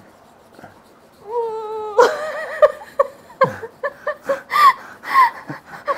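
A short drawn-out vocal whine about a second in, then laughter in a run of quick rhythmic bursts.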